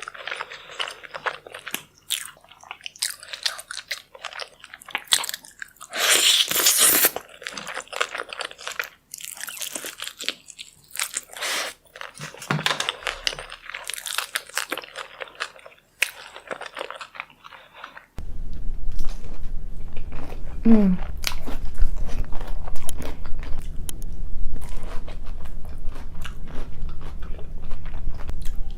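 Close-miked eating sounds: crunchy bites and wet chewing, in a rapid crackle. About two-thirds of the way through the sound changes abruptly to a recording with a steady low hum beneath the chewing.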